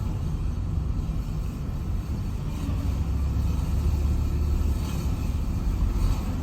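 Car rolling forward with a steady low rumble and a continuous metal-on-metal scraping from the wheel: a small stone caught in the brake is rubbing against it.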